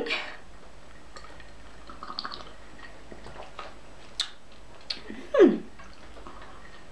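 A person sipping and swallowing a cold drink from a glass with ice: a few faint clicks and slurps, then, about five seconds in, a short vocal sound that falls in pitch.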